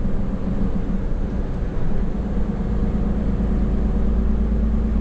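Hino heavy truck's diesel engine and road noise heard inside the cab while cruising at highway speed: a steady low drone with an even rumble.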